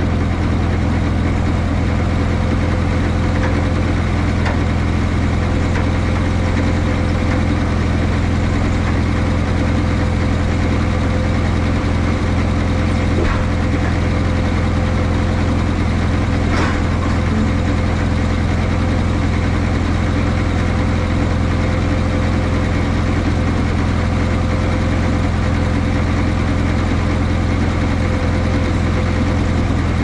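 Telehandler's engine running steadily at idle, with a thin steady whine above its low hum.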